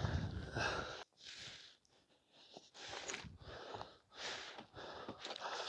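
A person breathing, a series of soft breaths a second or so apart, as from exertion.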